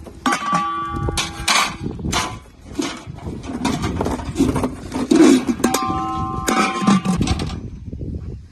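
Metal pots and kitchen utensils being handled, clanking and clinking against each other, with short ringing metallic tones twice.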